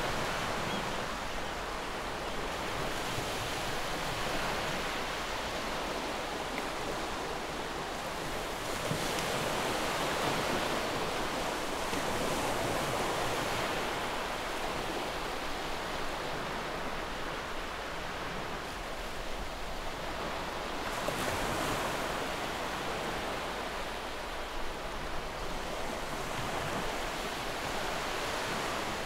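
Ocean surf as a background ambience: a steady rush of waves that swells and fades every few seconds.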